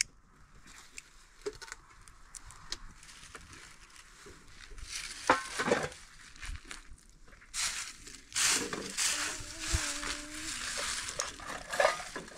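Dry leaves and twigs crinkling and rustling as they are handled and set alight with a lighter, growing louder and denser in the second half.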